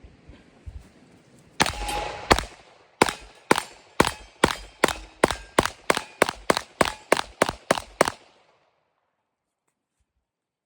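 Glock 17L pistol being fired: two shots, then a rapid string of about twenty shots at nearly four a second, stopping about eight seconds in.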